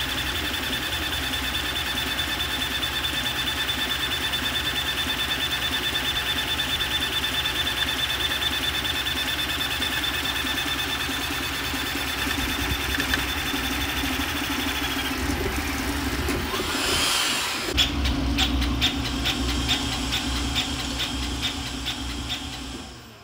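VzBoT 330 3D printer running a print at speed. The motion system and fans make a steady mechanical whir with a high whine held on two steady pitches, which dies away about fifteen seconds in. It is followed by a faster, rattling run of short moves.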